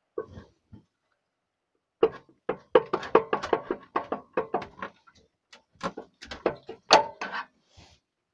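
Lifan 6.5 hp engine's crankcase side cover being rocked loose and pulled off by hand: a rapid, irregular run of knocks and clatter from about two seconds in.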